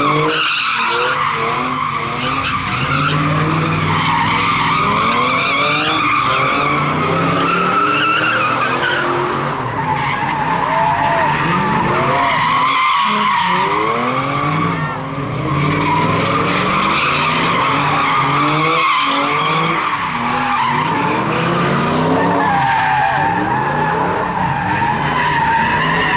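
Tyres squealing without a break as a vehicle spins donuts, its engine revving up and down under the wheelspin.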